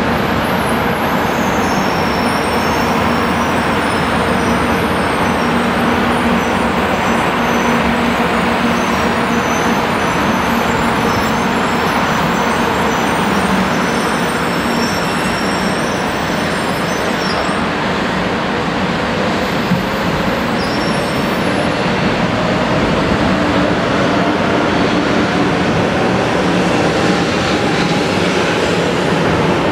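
500 series Shinkansen train moving along the platform as it gets under way, with a steady loud rush of running noise. Over the last several seconds a motor whine rises slowly in pitch as it picks up speed.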